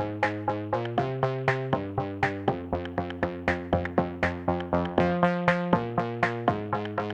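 Electronic background music: synthesizer chords over a steady drum-machine beat, about four beats a second.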